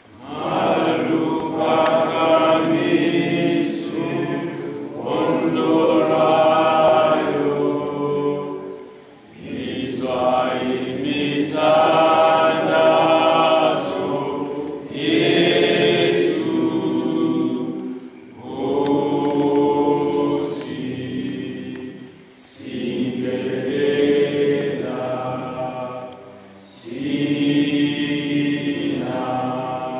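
A standing group of people singing together unaccompanied, in phrases of a few seconds with short pauses between them.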